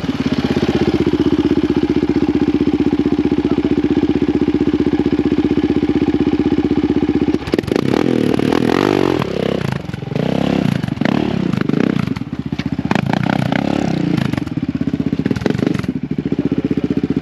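ATV engine running at a steady idle, then revved up and down for several seconds with knocks and rattles from about seven seconds in, before settling back to a steady idle near the end.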